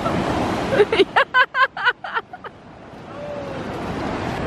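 Someone laughing in a quick run of about six short, high-pitched bursts, over breaking surf and wind on the microphone.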